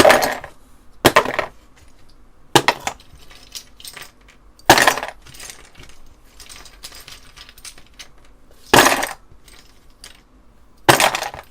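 Plastic keycaps from an Apple II Plus keyboard clattering as they are dropped into a container a handful at a time: six loud rattling drops one to four seconds apart, with small clicks and taps between them.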